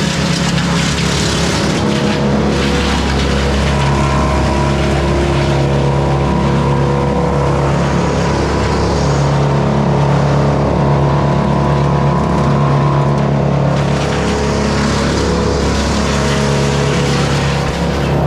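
Morbark Beever M12R wood chipper running steadily at working speed while branches are fed through, with a rushing chipping noise that swells and eases several times over the engine's steady drone.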